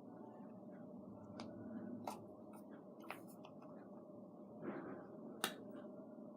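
Faint scattered clicks and soft handling sounds of hands working with small plastic objects, with three sharper clicks and a brief rustle near the end, over a low steady hiss.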